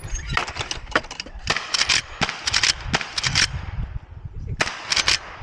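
Gunfire at a shooting range: a string of sharp cracks coming in several quick clusters.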